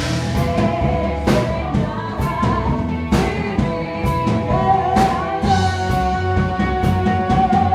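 Live rock band playing: drum kit with cymbal crashes about once a second over a steady bass line, and a long held note from a voice or guitar through the second half.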